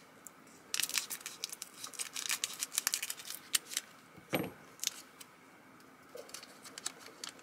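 Scissors cutting open a foil-wrapped hockey card pack: a quick run of small crinkles and clicks from the foil wrapper, with one sharper snap about four and a half seconds in.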